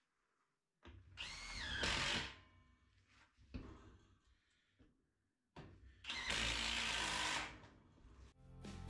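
Cordless drill running in two bursts, the first about a second long with its motor pitch rising and dipping, the second nearly two seconds long and steady. A few light knocks come between the two runs.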